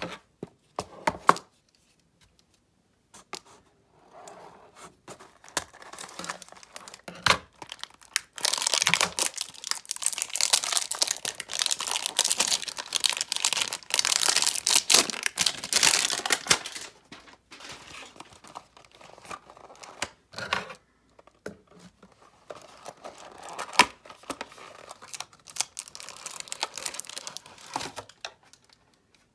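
Cardboard hanger box of trading cards being torn open by hand, with tearing and crinkling of the packaging. The tearing is densest for about nine seconds in the middle, with scattered clicks and rustles around it.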